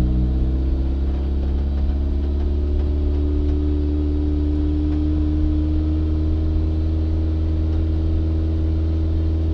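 Turbocharged 1994 Mazda Miata's 1.8-litre four-cylinder engine running smoothly under light load while driving, holding a nearly even note with no stumbling.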